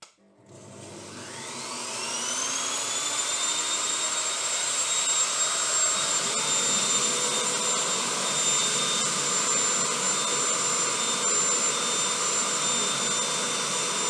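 An Evolution table saw and a shop vacuum switched on together: a click, then the motors spinning up with a rising whine that levels off after about two seconds into loud, steady running.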